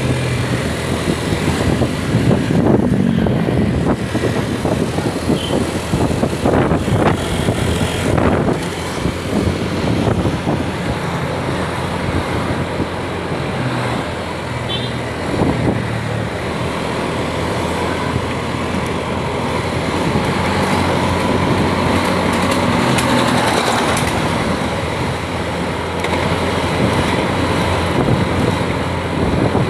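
A motor vehicle running along a road: steady engine and road noise that rises and falls a little throughout.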